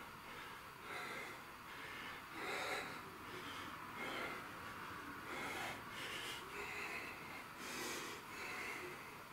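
A man breathing hard in short, regular breaths, about one a second, from the effort of a set of dumbbell squats.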